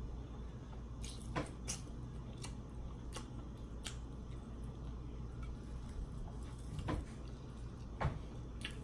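Wet mouth clicks and smacks of someone gnawing meat and gristle off a T-bone steak bone: about a dozen short, sharp ticks at irregular intervals over a steady low hum.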